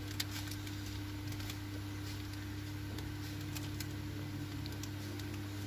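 Ford Fiesta's electric radiator cooling fan running with the ignition on: a steady low hum, with a few faint light clicks over it.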